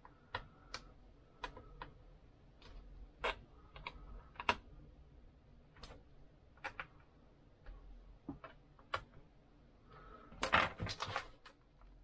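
Scattered small clicks of a screwdriver tip seating in the screws on a laptop's aluminium bottom cover as they are checked for tightness. Near the end comes a louder, denser clatter as the laptop is handled and lifted.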